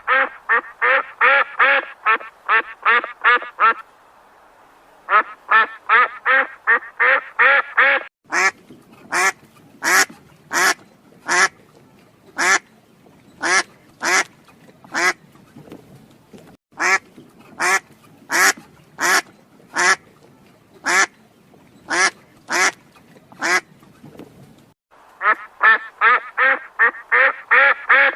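Ducks quacking in rapid runs of about four quacks a second. From about 8 s to about 25 s there are slower, harsher single quacks, one or two a second, before the rapid runs return.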